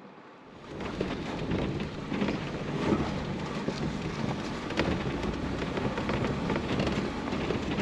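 Vehicle driving over a dirt and gravel trail: a steady rumble of tyres on loose ground full of fine crunching and rattling, with wind noise, heard from inside the vehicle. It comes up about half a second in.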